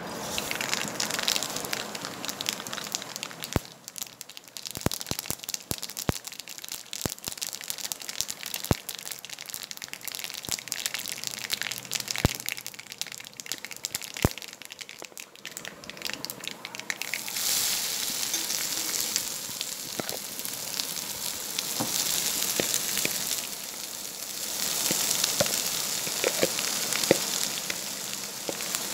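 Mustard seeds spluttering in hot coconut oil in an iron kadai: many sharp, separate pops and crackles. About halfway through this gives way to a louder, steady sizzle of frying in the pan.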